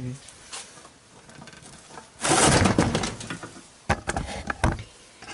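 Handling noise from the rusty metal table of an old bench drill press. A burst of scraping noise comes about two seconds in, then several sharp knocks a second or so later.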